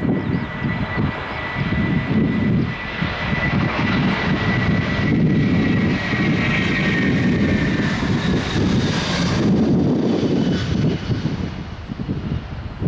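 Jet airliner passing close by: a loud, steady engine rumble with a high whine that slowly falls in pitch, the whine dropping away about nine seconds in.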